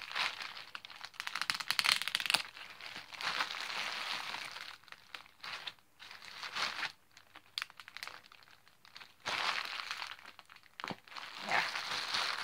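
Large clear plastic bag crinkling as it is handled and squeezed to press the air out, in uneven bouts with a quieter lull past the middle.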